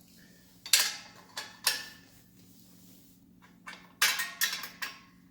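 Steel wrench clinking against motorcycle exhaust fittings as a nut is tightened: three sharp separate clinks in the first two seconds, then a quick run of metallic clicks from about four seconds in.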